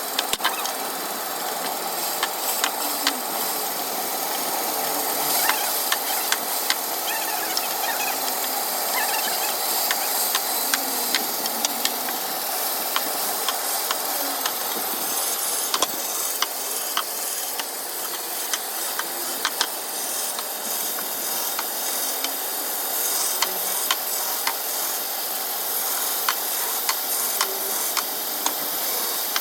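Woodworking machine cutting wood: a steady hiss of the blade working the wood, broken by many short sharp clicks and ticks.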